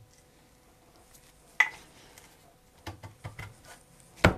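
Wooden chair parts knocking as glued joints are pushed and struck together by hand. There is a sharp knock about one and a half seconds in, a few lighter knocks around three seconds, and a loud knock near the end.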